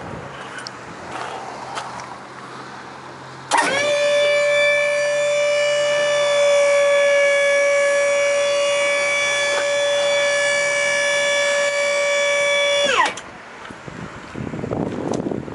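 Electric hydraulic pump of a tilt-bed trailer running, a loud steady high whine that drives the cylinder to tilt the bed up. It starts abruptly a few seconds in, runs for about nine seconds, and winds down with falling pitch as it shuts off.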